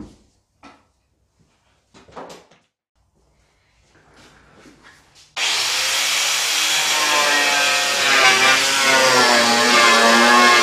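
A few clicks and knocks, then about five seconds in an angle grinder fitted with a paint-stripping disc starts abruptly and runs steadily, its pitch wavering as the disc strips paint from a car's steel body panel.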